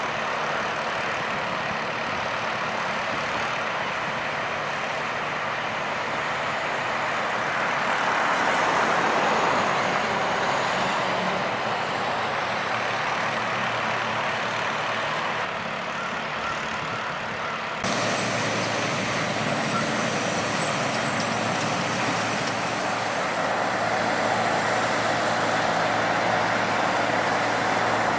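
Heavy road machinery running steadily: a cold milling machine grinding off asphalt pavement, with trucks working alongside. The sound changes abruptly about two-thirds of the way through.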